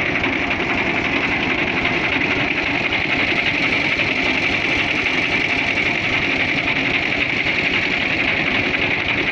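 Al-Ghazi Fiat 480 tractor's three-cylinder diesel engine idling steadily, heard close to the engine as an even, fast clatter.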